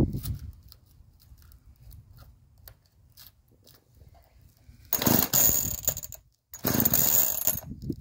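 A 38cc gas chainsaw being pull-started by hand: after some faint handling clicks, two loud pulls of the recoil starter about five and six and a half seconds in, each about a second and a half long, with the engine turning over but not settling into a run.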